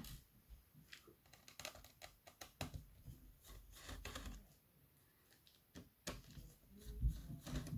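Hands working over a laptop's keyboard and plastic case: irregular plastic clicks and taps, with a few dull knocks near the end as the laptop is handled.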